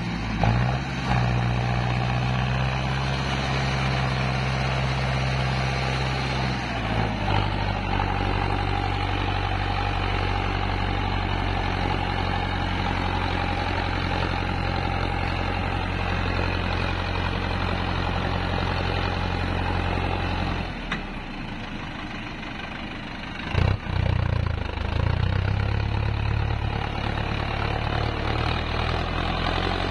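Mahindra Arjun tractor's diesel engine running under load as it pulls a trolley heaped with mud. The engine note shifts about seven seconds in, falls away for a couple of seconds around twenty-one seconds, then comes back after a short loud burst.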